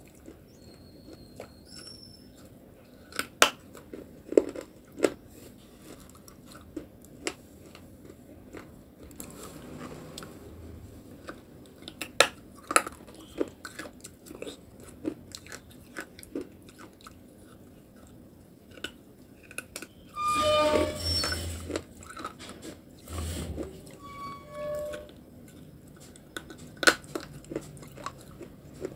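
Close-miked biting and chewing of a lump of white clay paste, with sharp crunchy bites scattered through. About twenty seconds in there is a louder noisy stretch lasting a second or two, and a shorter one soon after.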